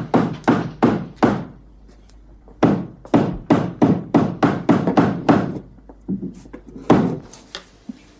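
Hammer driving nails into wood: runs of sharp blows, about three a second, with short pauses between the runs and a last few blows near the end, as a door is nailed shut.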